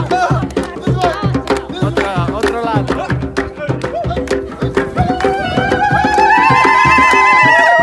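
Traditional-style music with a steady hand-drum beat under a moving melody. About five seconds in, a long note slides up and is held, wavering slightly, to the end.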